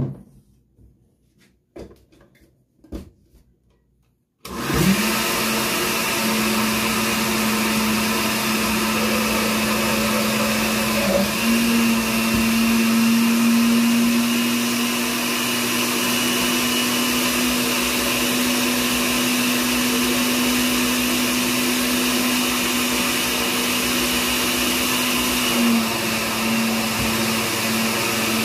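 Countertop blender motor starting about four seconds in and running steadily, blending a flour-and-water paste (engrudo) smooth; its pitch steps up slightly partway through and dips briefly near the end. A few light knocks come before it starts.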